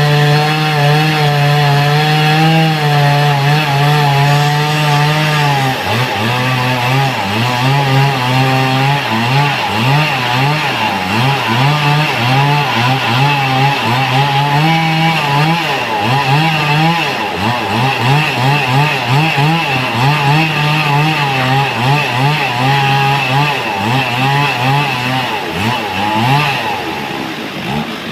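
Two-stroke chainsaw running at high speed, then cutting into wood from about six seconds in, its engine speed dipping and recovering again and again under load. It eases off near the end.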